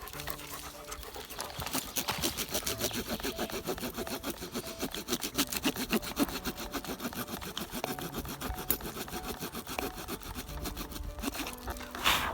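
The small folding saw blade of a Swiss Army knife cutting back and forth across the grain of a log in quick, even strokes, scoring a shallow kerf. The sawing picks up about a second and a half in, with one louder rasp near the end.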